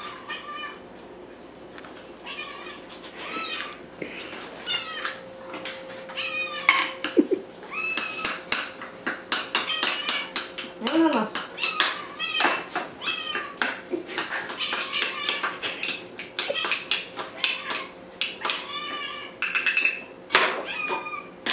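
Cats meowing over and over, insistently, as tinned wet food is served. From about six seconds in, a spoon clinks and scrapes against the tin and the ceramic bowls.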